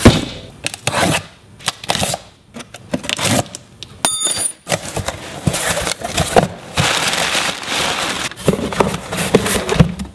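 A cardboard box being opened and handled, with crumpled kraft packing paper rustling and crackling as it is pushed aside, and irregular knocks and scrapes of cardboard flaps and a boxed tool being lifted out.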